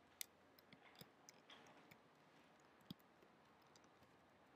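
A dozen or so faint, irregular clicks from working at a computer, keys and mouse, over near-silent room tone; the clearest come just after the start and about three seconds in.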